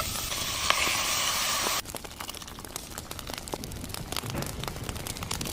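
Outdoor cooking sounds: a steady sizzling hiss that cuts off suddenly about two seconds in, then light crackling and popping like a cooking fire.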